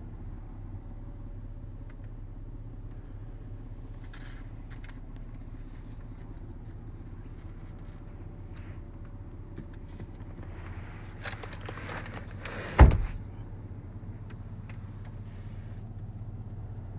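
A car door shut with a single solid thud about two-thirds of the way in, after a second or so of rustling, over a steady low hum.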